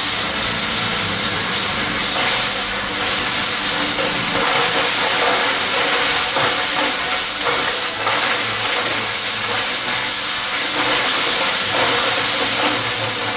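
Stuffing vacuum running with a loud, steady rushing hiss of air, the rush of a blower moving crushed polystyrene foam through its hose. It cuts in abruptly at the start.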